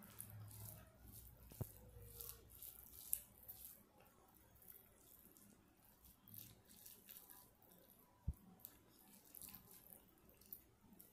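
Fingers mixing and squishing cooked rice with curry on a plate: faint, soft, wet squelching and rustling of the rice, with a few sharp clicks.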